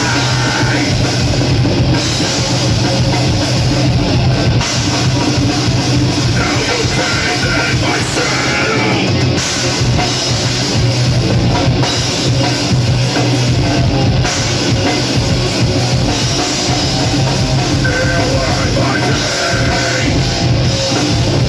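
Heavy metal band playing live and loud: distorted electric guitar over a pounding drum kit with bass drum, with no break in the music.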